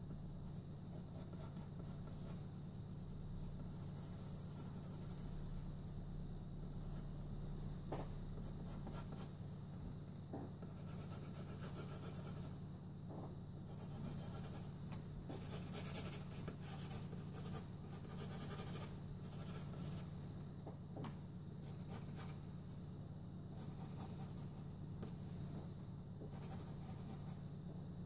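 Graphite pencil scratching across a sheet of paper in irregular sketching strokes, some short and some drawn out, over a steady low hum.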